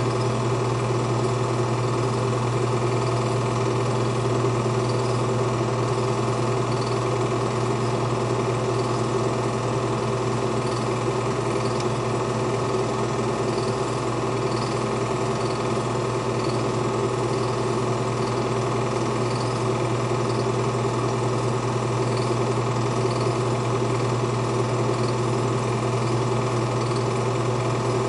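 Film projector running while home movies are played back: a steady mechanical whir with a faint high tick about once a second.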